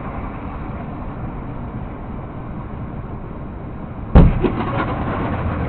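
Steady engine and road drone inside a moving truck's cab, then a sudden loud bang about four seconds in followed by a few rattling clicks, which the driver takes for another truck's wheel going.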